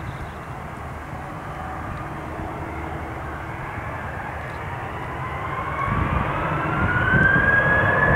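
An Airbus A320-family jet's twin turbofan engines spool up on the runway for takeoff. A steady jet rumble turns, from about five seconds in, into a whine that rises in pitch as the sound grows louder.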